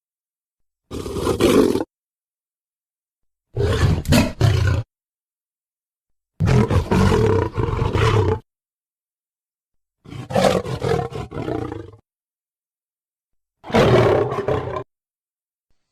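Big-cat roar sound effects presented as a cave lion (steppe lion): five separate roars, each one to two seconds long, with complete silence cut in between them.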